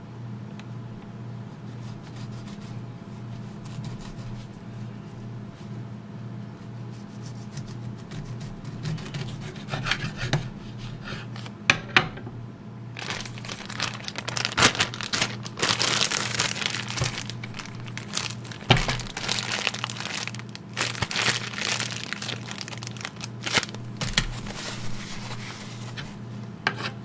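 Crinkling and rustling of food wrapping handled by hand, irregular, with a few sharper crackles, starting about nine seconds in and busiest in the middle, over a steady low hum.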